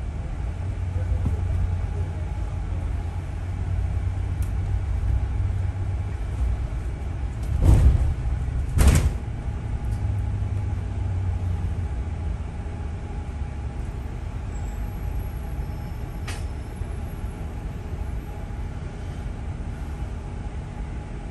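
London double-decker bus heard from the upper deck: a steady low engine and road rumble, with two loud thumps about a second apart near the middle.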